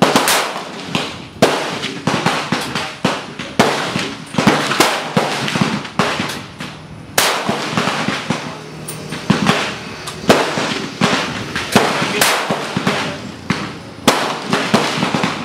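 Rifle gunfire at a busy shooting range: many sharp shots from several guns at irregular intervals, about two a second, each dying away quickly.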